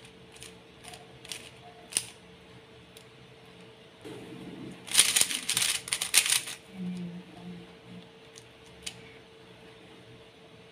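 MoYu Super RS3M ball-core maglev 3x3 speed cube turned by hand. A few separate clicks of single layer turns, then a quick run of rapid clacking turns about five seconds in.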